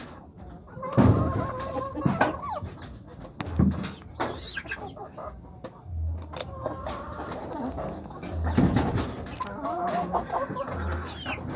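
Brown hens clucking, with several drawn-out calls one after another and scattered sharp clicks.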